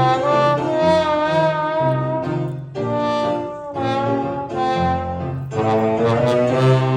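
An orchestra playing a melodic passage carried by brass, trombones and trumpets prominent, in phrases with short breaks.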